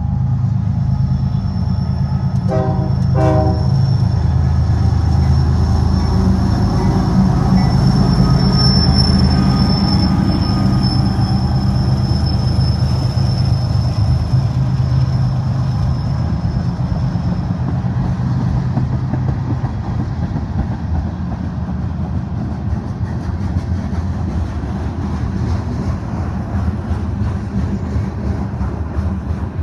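A freight train's diesel locomotives, led by a GE ES44AC, running past with a heavy engine drone and two short horn toots about three seconds in. A thin high whine runs through the middle. After about 18 seconds the engine drone fades and the rumble and clatter of freight cars rolling by is left.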